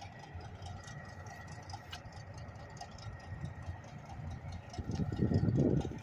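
Diesel locomotive engine idling with a low rumble, then growing louder with a pulsing throb about five seconds in.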